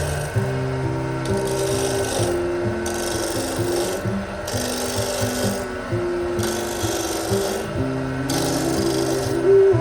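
Rhythmic rasping or rubbing strokes, about one every second and a half, over soft background music with held low notes.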